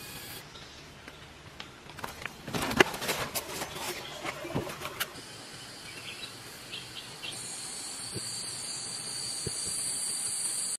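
Forest ambience: a steady high-pitched insect drone, broken by a few seconds of sharp clicks and crackles in the middle. The drone comes back louder for the last few seconds.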